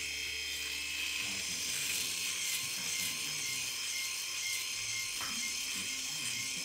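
Philips S7000 rotary electric shaver running steadily, its cutting heads pressed against the scalp and cutting short stubble.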